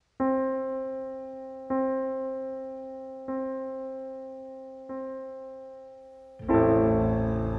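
Piano striking the same note four times, about a second and a half apart, each left to ring and fade. About six and a half seconds in, a louder, fuller chord with deep bass comes in.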